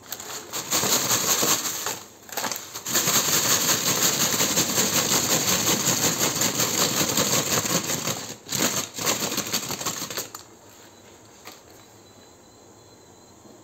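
Paper shake-shake bag of seasoned fries rustling and crinkling loudly as it is shaken and tipped out over a frying pan. The rustling breaks off briefly about two seconds in and again a little after eight seconds, then stops about ten seconds in.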